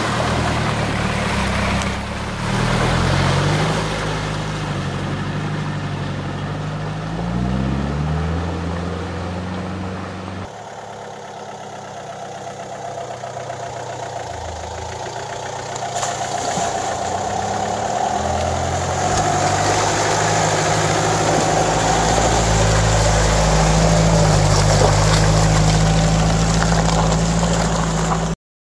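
1989 Mitsubishi Pajero's engine working through deep mud, its note rising and falling as the throttle is worked. After a cut about ten seconds in, the engine grows steadily louder and higher as the truck comes closer, then cuts off suddenly near the end.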